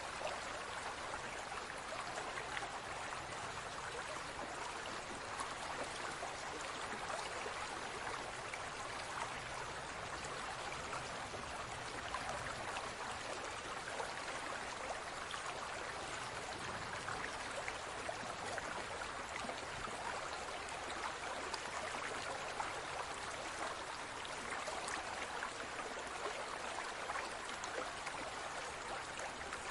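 Water moving in a large fish tank: a steady trickling rush peppered with many small ticks and pops.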